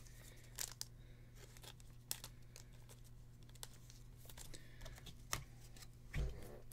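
Soft crinkling and scattered light clicks of a trading card and a clear plastic card sleeve being handled, over a steady low hum, with a soft bump near the end.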